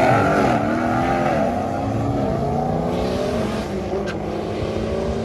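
Car engine under hard acceleration on a drag strip run. Its pitch falls over the first couple of seconds, climbs again and then holds steady.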